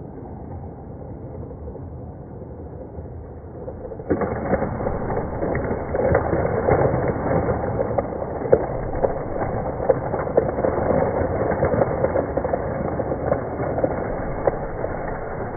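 Lego toy train running in slow-motion playback, its motor and wheels a deep, muffled rumble. About four seconds in it turns louder, with a stream of plastic clicks and clatter as the train ploughs through the Lego minifigures and knocks them down.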